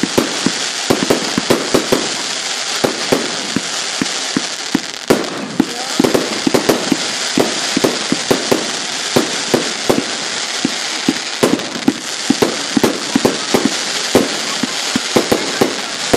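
Aerial fireworks going off in quick succession: an irregular string of sharp bangs and pops, several a second, over a steady crackling hiss from the bursting stars.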